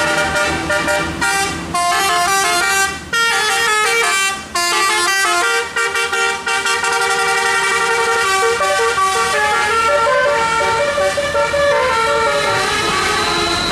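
Bus telolet musical air horn playing a tune, the horn notes jumping quickly from pitch to pitch. It breaks off briefly about three and four and a half seconds in, then goes on in longer held notes.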